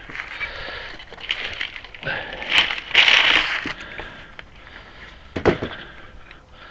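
Packaging rustling and crinkling while a new breaker bar is unwrapped and handled, loudest about a third of the way in, with a few sharp knocks, one near the end.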